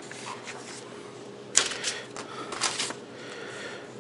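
Handling noise from unboxing: rustling, scrapes and light knocks as the packaging and microphone parts are moved about, the loudest scrape about a second and a half in.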